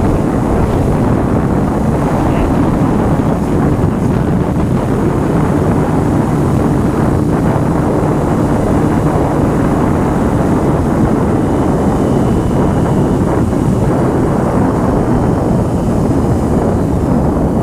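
Steady, loud wind noise over the microphone of a motorcycle at riding speed, with the Honda CBR's engine running beneath it.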